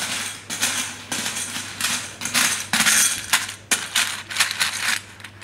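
A spoon stirring spiral pasta in a stainless steel bowl: a quick, uneven run of scrapes and clinks of the spoon against the metal.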